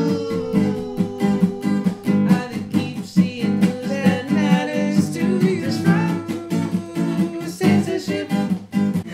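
Acoustic guitar strummed in a steady rhythm, with singing over it in long held notes.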